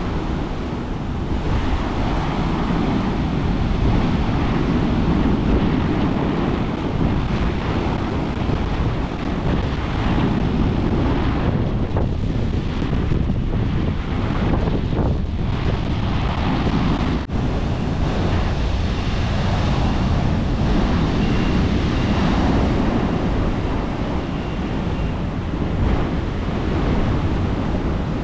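Large king-tide ocean waves breaking and churning in a continuous rush that swells and eases every few seconds, with wind rumbling on the microphone.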